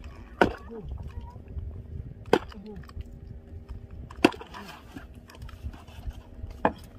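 Four sharp blows of a club, about two seconds apart, as a fisherman clubs a fish held against the side of the boat. A boat engine hums steadily underneath.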